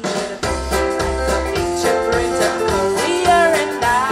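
Live band playing amplified music with a steady beat, with singing.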